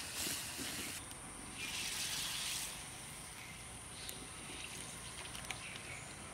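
Hot fish curry hissing and bubbling in an iron wok lifted off a wood fire, in two louder spells over the first few seconds, then quieter, with a few light metal clinks as the wok is tipped over a steel bowl.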